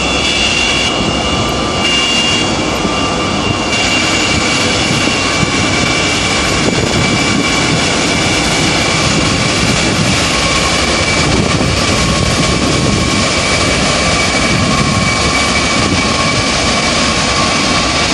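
Antonov An-225 Mriya's six Progress D-18T turbofan engines running as the giant jet taxis: a loud, steady jet roar with high whining tones over it.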